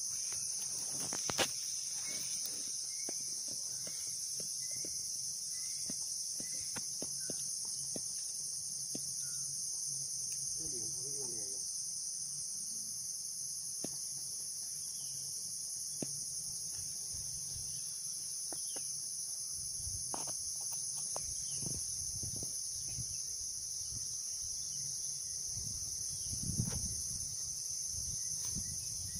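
Steady, high-pitched chorus of insects, with scattered faint clicks and rustles and a short run of small chirps a few seconds in.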